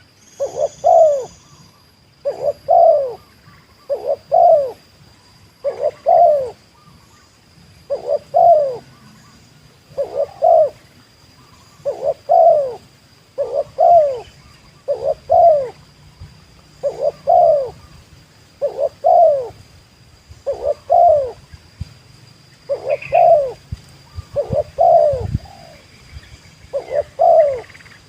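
Spotted dove cooing: a short phrase of two or three coos, repeated about every two seconds.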